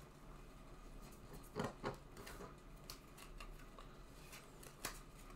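Trading cards being handled and set down on a tabletop: a few faint taps and rustles, the clearest near the middle and near the end.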